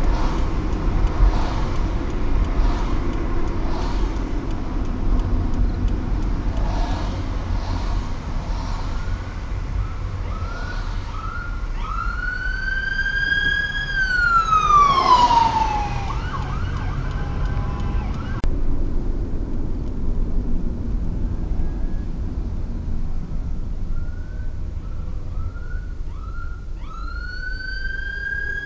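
Fire department ambulance siren heard from inside a moving car over steady road rumble: a few short yelps, then a wail that rises, holds and falls. About 18 seconds in the sound cuts, and near the end the same yelps and rising wail start again.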